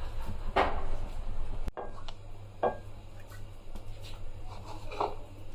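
A few light knocks and clinks of kitchen utensils over a steady low hum.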